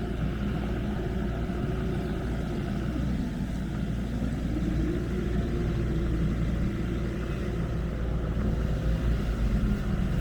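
A motor vehicle's engine running close by: a steady low rumble with a faint hum whose pitch drifts slowly up and down.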